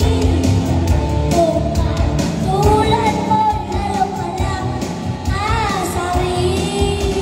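A child singing a pop song into a microphone over a backing track, both amplified through a PA sound system.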